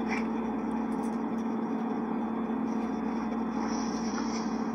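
Steady background hum and hiss of room noise, with one continuous low tone and no distinct events.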